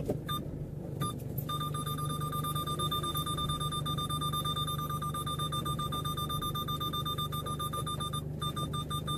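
Toyota Hilux cabin on the move: engine and road noise as a low steady rumble. Over it runs a steady high-pitched electronic tone, which drops out briefly about a second in and again near the end.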